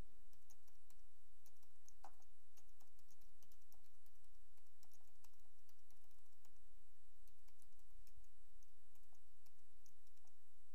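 Typing on a computer keyboard: a long run of light, quick key clicks, over a steady low hum.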